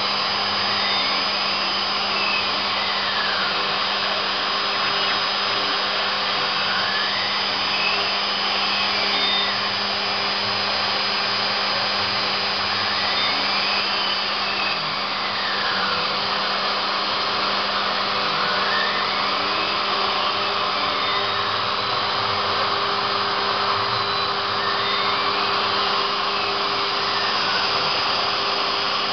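CNC router cutting PVC: the spindle motor runs steadily, and a whine rises and then falls in pitch about every six seconds as the machine's axes speed up and slow down on each pass.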